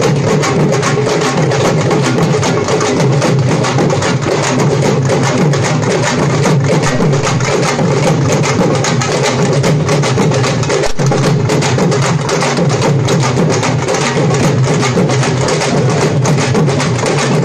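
Music driven by fast, steady drumming, the drum strokes dense and continuous.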